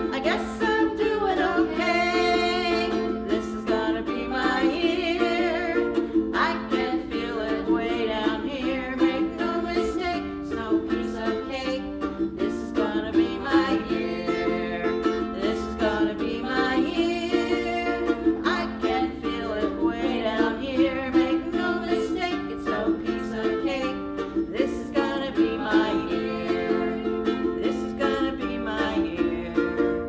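A live song: women's voices singing over a steadily strummed ukulele.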